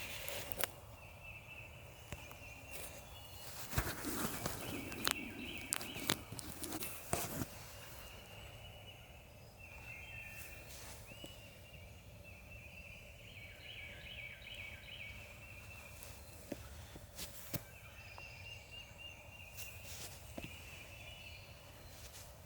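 Wild turkeys gobbling, about six calls a few seconds apart. A stretch of rustling and clicks comes about four to seven seconds in.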